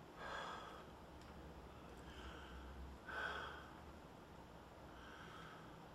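A man breathing slowly and deeply in and out through his mouth, two full breaths, each a soft rush of air with the out-breaths the louder, taken for a stethoscope check of his lungs.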